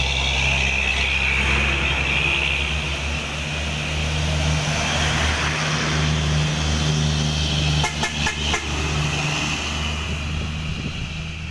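Diesel engines of fuel tanker trucks passing close by, running steadily with tyre noise. A quick run of sharp clicks comes about eight seconds in.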